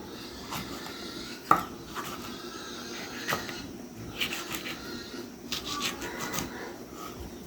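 Irregular knocks and clatter of things being handled, like wood and utensils, with one sharp knock about one and a half seconds in and a few quick runs of clicks near the end.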